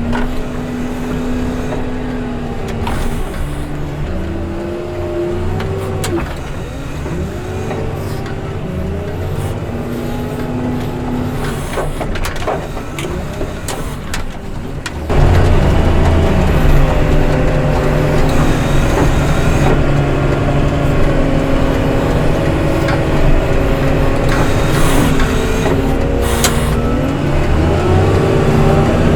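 Heavy snow-clearing machine's diesel engine running under load, its pitch rising and falling again and again as it revs with the work. About halfway through it suddenly becomes louder and fuller.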